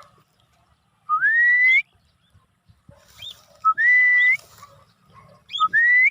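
A person whistling to call a free-flying cockatiel back: three rising whistles, each sweeping up in pitch and lasting under a second, about two seconds apart. Short high chirps come between them.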